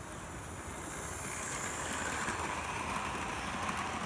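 Hornby OO-gauge Flying Scotsman model train running past on its track: the whir of the small electric motor and wheels on the rails, growing louder over the first couple of seconds as the train comes close.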